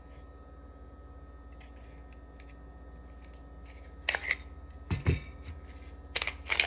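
Handling of a Glock 19 Gen 5 pistol and its magazines: a sharp click about four seconds in, a heavier knock about a second later, and a few quick clicks near the end, over a steady low hum.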